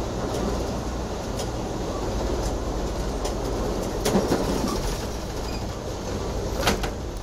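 Riding inside a moving passenger train car: the steady low rumble of the train running, with the wheels clicking over rail joints, the sharpest clacks about four seconds in and again near the end.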